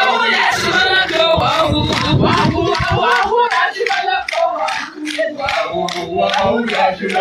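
A group of voices singing and chanting together over a steady beat of sharp strokes.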